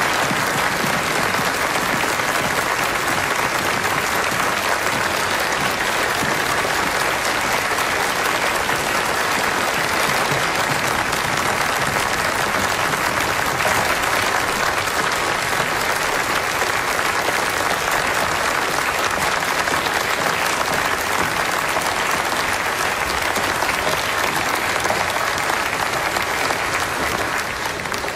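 Large crowd applauding, a dense, steady clapping that holds at the same level throughout.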